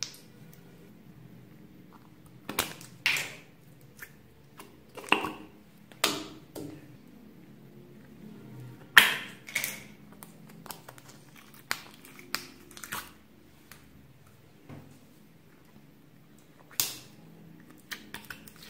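Slime being handled and pulled from small clear plastic containers: irregular sharp pops, clicks and squelches of sticky slime and plastic, the loudest about nine seconds in.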